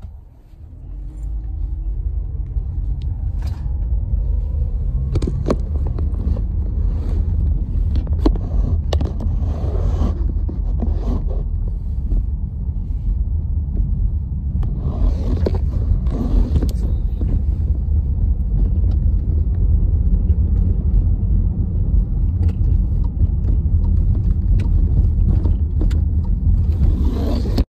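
Steady low road and engine rumble inside a moving car's cabin, picked up by a hand-held phone, with scattered knocks and rubbing from the phone being handled.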